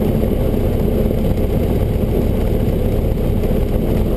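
Cessna 172's piston engine idling with the propeller turning, a steady drone that holds unchanged throughout.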